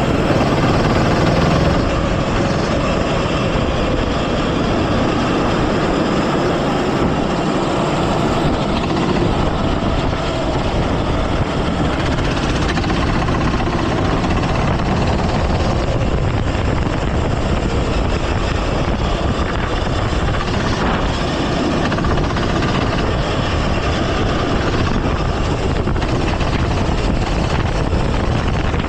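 Go-kart engine running continuously at racing speed, heard from on board the kart, its pitch wavering up and down slightly as it rises and falls.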